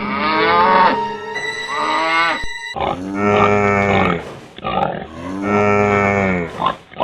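Two long, drawn-out animal-like calls, starting about three and five seconds in, after a couple of seconds of warbling pitched sound effects.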